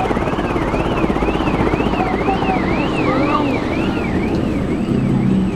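Steady wind rush and low rumble aboard the Avió airplane ride in motion, with a high siren-like tone rising and falling about twice a second over it.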